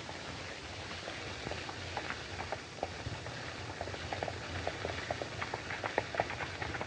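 Steady hiss and crackle of an old optical film soundtrack, with a low hum and many scattered small clicks that grow denser in the second half.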